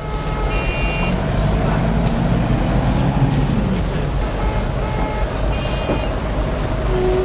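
City street traffic: a steady rumble of passing vehicles, with a heavy vehicle's engine rising and then falling in pitch in the first few seconds. Brief high squeals come and go a few times.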